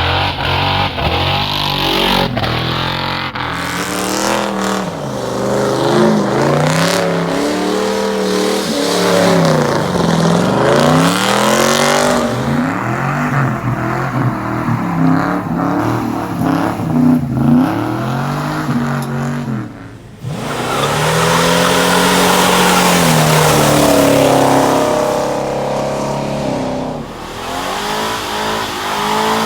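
Car engine revving hard under acceleration, its pitch climbing and falling again and again as it pulls through the revs. About twenty seconds in it briefly drops off, then comes back loud and steady.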